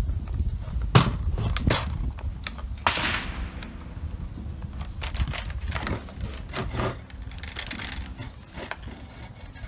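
Scattered sharp metallic clicks and knocks from a GSG 522 .22 rifle and its 110-round drum magazine being handled while the rifle is cleared, with a sharper crack about three seconds in that trails off.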